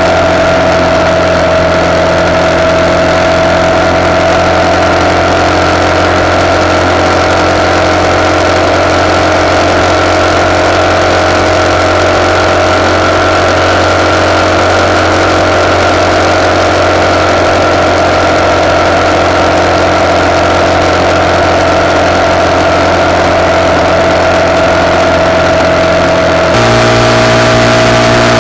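RPS Hawk 250's single-cylinder four-stroke engine running steadily under way through a decatted CRF230 exhaust, picked up by a handlebar-mounted camera along with wind noise. Near the end the engine note changes abruptly.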